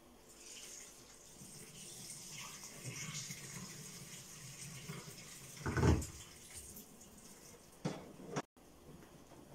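Water poured from an electric kettle into a kitchen sink, rinsing boiled macaroni, with a steady splashing for several seconds. A loud thump comes about six seconds in, then two sharp knocks near the end.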